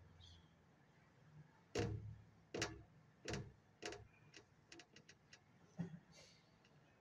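Irregular knocks and clicks in a quiet hall: four sharper knocks about two-thirds of a second apart, then a run of fainter, quicker ticks and one last knock, over a low steady hum.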